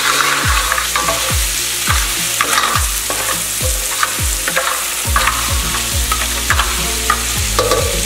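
Shrimp, lobster claw and sausage sizzling in butter in a large pan while a spoon stirs and scrapes through them. Background music with a steady beat, about one thud every 0.7 seconds, runs underneath.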